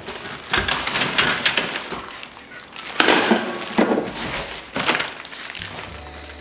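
Packaging being handled: plastic wrap crinkling and cardboard and foam scraping and knocking in irregular bursts as parts are lifted out of a cardboard shipping box. A low steady hum comes in near the end.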